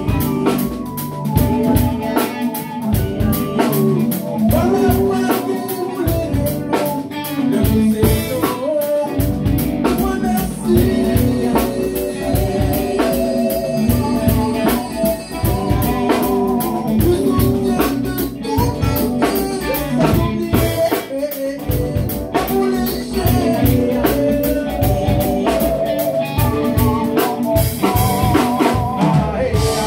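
A band rehearsing a song: a drum kit keeping a steady beat under guitar and a singing voice, playing without a break.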